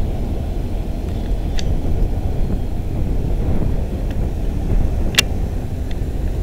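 Steady low rumble of wind buffeting the microphone, with a few sharp clicks, the loudest about five seconds in.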